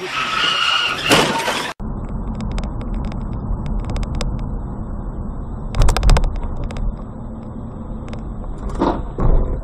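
Car cabin noise from a dashcam driving on a wet road: a steady low rumble. It starts after an abrupt cut about two seconds in. A cluster of sharp knocks comes about four seconds later, and another loud knock near the end.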